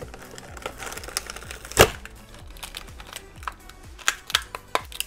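Hands handling a small clear plastic blister pack: it is pried off cardboard and squeezed, giving scattered plastic clicks and crinkles, with one sharp snap just before two seconds in and a run of small clicks near the end.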